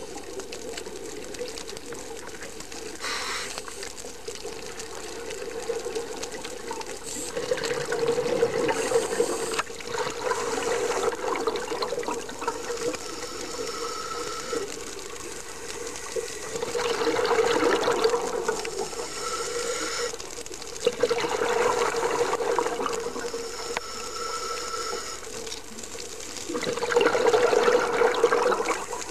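Scuba diver's exhaled bubbles rushing out of the regulator underwater, in surges every four to five seconds over a steady hum.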